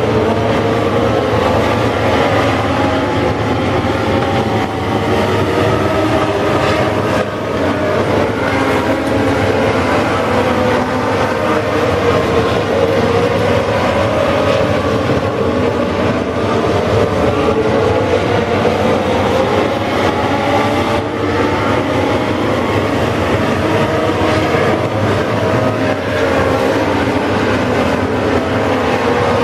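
Several Legends race cars' Yamaha motorcycle engines running hard together, their engine notes overlapping and rising and falling as the cars go around the track.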